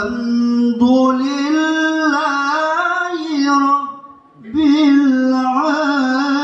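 A man reciting the Qur'an in the melodic tilawah style, holding long ornamented notes with wavering, melismatic pitch. He breaks off briefly for a breath about four seconds in, then resumes.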